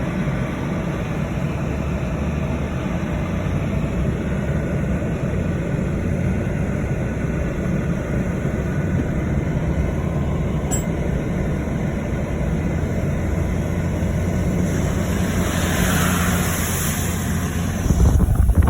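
Steady rumbling rush of a flooded river. A gust of wind buffets the microphone near the end.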